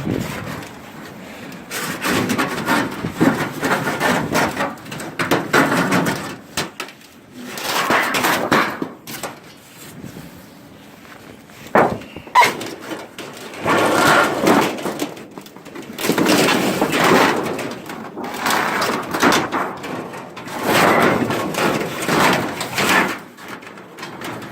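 Aluminum siding being torn off and handled: repeated scraping and rattling of thin sheet metal in bursts of a second or two, with two sharp knocks about twelve seconds in.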